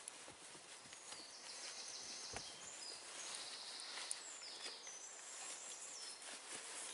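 Songbirds singing nearby in short, high whistled phrases and a trill, over faint rustling of a t-shirt being rolled up by hand, with a couple of light knocks about two and four seconds in.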